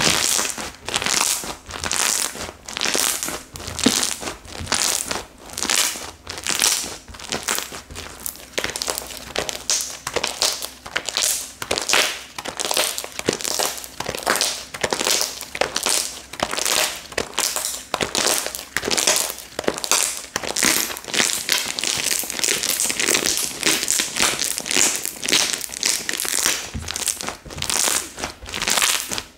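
Slime being squeezed and pressed by hand, giving bursts of rapid clicking pops roughly every second.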